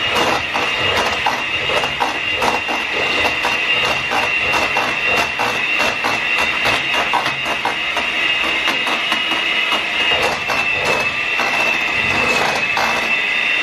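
Electric hand mixer with whisk beaters running steadily, beating eggs into choux pastry dough in a steel saucepan: a constant whine with rapid, irregular clicking and knocking from the beaters against the pan.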